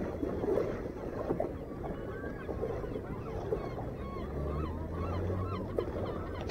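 Gulls calling: a string of short, wavering cries through the middle, over a steady low wash of wind and water.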